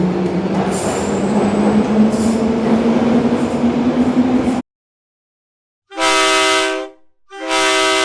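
Train running: a rumble with an engine tone slowly rising in pitch, cut off suddenly a little over halfway through. After a short silence, a train horn sounds a short chord blast, then a longer one.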